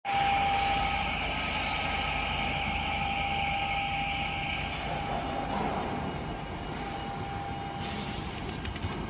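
Industrial machinery running steadily, a constant whine over a rushing noise; the higher hissing part drops away about four and a half seconds in.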